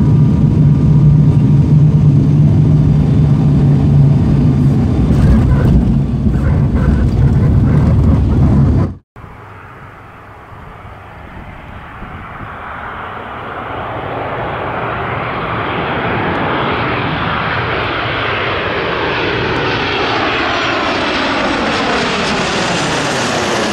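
ATR-72 turboprop cabin noise during the take-off roll: a loud, steady propeller and engine drone with a low hum. About nine seconds in it cuts abruptly to a twin-engine jet airliner approaching overhead, its rushing engine noise growing steadily louder with a sweeping whoosh as it nears.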